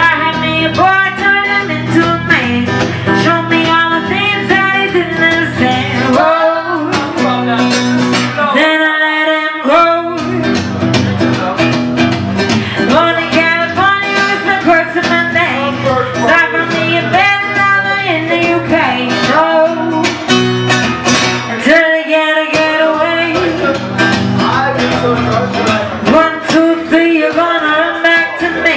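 Live amplified pop-rock song: a woman's lead vocal into a microphone over strummed acoustic guitar. The low accompaniment cuts out briefly twice while the voice carries on.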